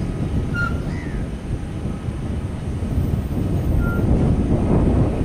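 Jet engine rumble of an Airbus A320 on approach to land, growing louder toward the end, with wind on the microphone. A few brief high chirps sound over it.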